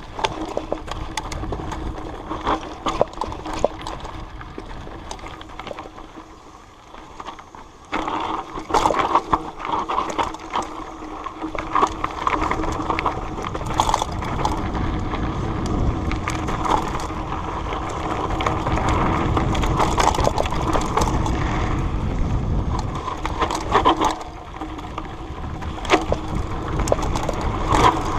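Continuous crunching, crackling and knocking of movement over a dirt trail, getting louder about eight seconds in.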